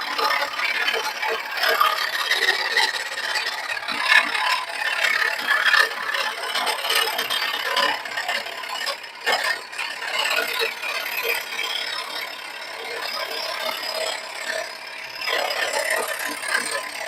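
Charnwood SS16F scroll saw's 90-watt motor running while a tool works a workpiece, a continuous rattling, rasping noise.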